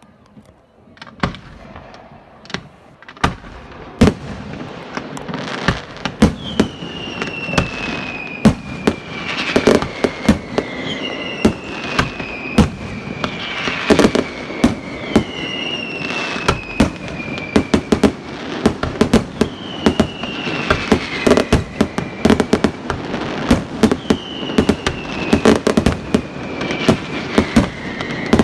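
Fireworks display: scattered bangs that build within a few seconds into a dense, continuous barrage of reports and crackle. Falling whistles recur every couple of seconds from about six seconds in.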